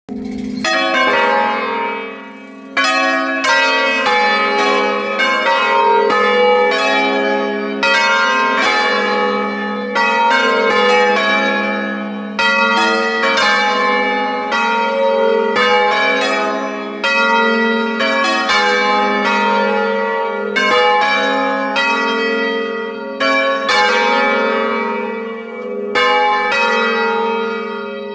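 Five-bell peal in A-flat, Giorgio Pruneri bells of 1907, ringing loud and close from inside the belfry: a fast succession of overlapping bell strokes, two or three a second, over a deep sustained hum, with a brief lull about two seconds in. The bells are rung in the Bergamasque concerto style by a team of ringers.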